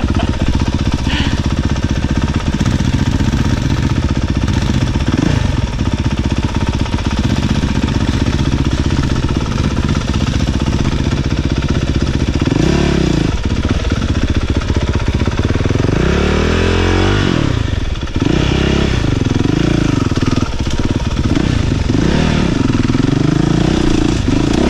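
Honda CRF450RX dirt bike's single-cylinder four-stroke engine running close up under its rider. From about halfway through, its pitch rises and falls repeatedly as the throttle is worked.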